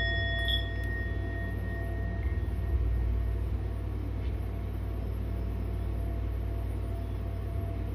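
A struck metal sound-healing chime rings out and fades over the first two seconds or so, leaving a faint steady tone that swells again near the end, over a steady low rumble.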